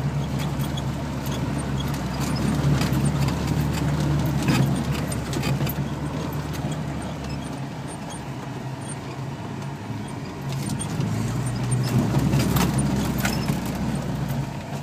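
Off-road vehicle heard from inside the cabin while driving over a rough track: a steady low engine drone with scattered sharp knocks and rattles from the cabin as it bumps along. The engine eases off about halfway through and picks up again a few seconds later.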